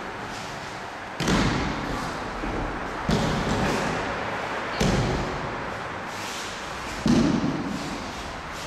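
Bodies landing on tatami mats as partners are thrown and take breakfalls: four heavy thuds about two seconds apart, each ringing out briefly in a large gym hall.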